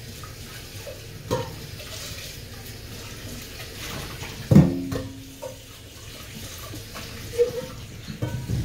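Kitchen tap running into a metal sink while a stainless steel pot is rinsed under it. The pot knocks against the sink a few times; the loudest clank, about halfway through, rings briefly.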